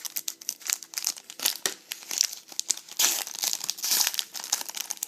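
Wrapper of a trading-card pack crinkling as it is torn open and handled: a run of sharp crackles, busiest in the second half.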